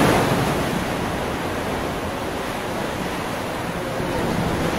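Ocean surf washing in among the rocks: a steady rushing noise, a little louder at the start and again near the end.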